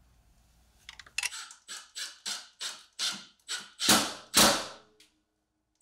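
Cordless impact driver driving screws into the dust-collector cyclone's housing in a quick series of short bursts, about three a second, growing louder, with the last two bursts the loudest.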